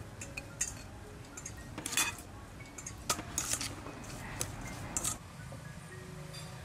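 Metal spoon clinking and scraping in a stainless-steel mixing bowl as a salad is stirred: a string of irregular sharp clinks, the loudest about two seconds in.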